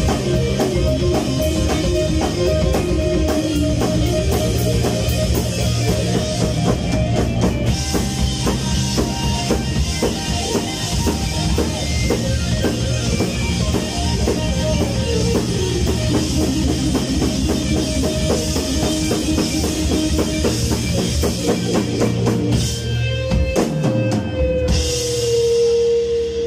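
Live rock band playing an instrumental passage on drum kit, bass, electric guitar and synths. About 23 seconds in, the drums stop, a pitch glides down, and a single note is held to the end.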